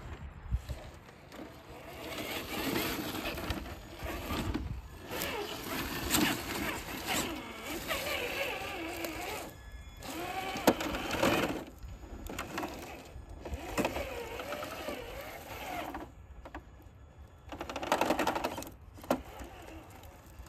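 Electric motor and gear drivetrain of a Traxxas TRX-4 Chevy K10 RC crawler whining, rising and falling in pitch with the throttle, with tyres scrabbling and scraping over rocks and dirt and small clicks and knocks. It stops briefly about ten seconds in, and again for over a second near the end.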